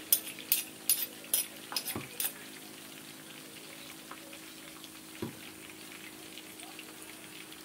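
Hot cooking oil in a wok crackling and spitting, with sharp pops coming two or three a second for the first couple of seconds, then settling to a faint steady sizzle. There is a soft knock at about two seconds and another at about five.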